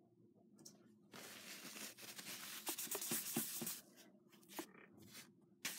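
Soft rustling and crinkling from hands handling small things on a tabletop, with a few light clicks. It starts about a second in and lasts about three seconds, and there is a shorter rustle near the end.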